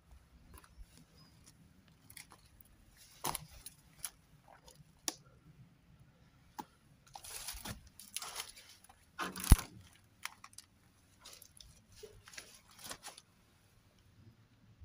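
Footsteps through dry undergrowth: dead leaves crunching, twigs and brambles snapping and brushing past in irregular bursts, with one sharp snap about two-thirds of the way in.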